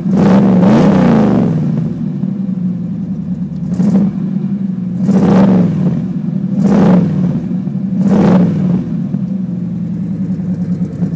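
Modified 355 cubic-inch four-bolt small-block V8 idling through side-exit lake-pipe exhaust and revved five times. The first rev, right at the start, is the longest; the others are short blips a second or two apart.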